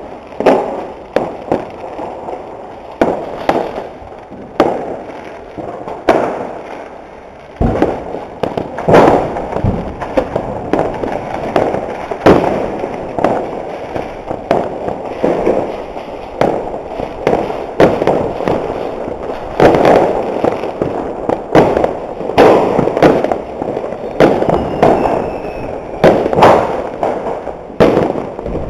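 Fireworks and firecrackers going off in an irregular barrage of bangs and pops, coming thicker and louder after about eight seconds.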